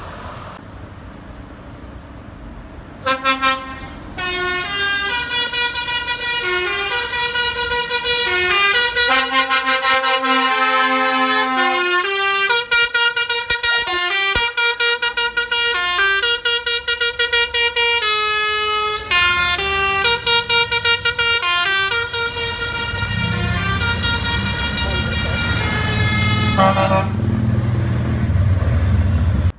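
A truck's musical multi-trumpet air horn playing a long melody of quickly changing notes, starting about three seconds in and running for over twenty seconds. A lorry's diesel engine rumble grows under it near the end.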